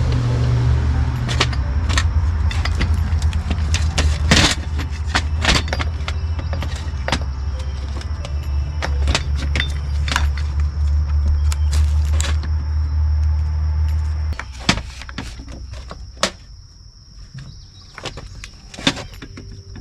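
Small parts of a string trimmer's throttle cable and handle clicking and clinking as they are handled, with irregular sharp clicks throughout. Under them runs a steady low machine hum that cuts off about fourteen seconds in.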